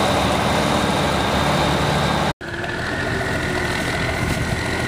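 An M818 military 6x6 truck's Cummins six-cylinder diesel running as it drives on a dirt trail. It cuts off abruptly, and a Chevrolet truck's engine takes over, running steadily with a faint high whine.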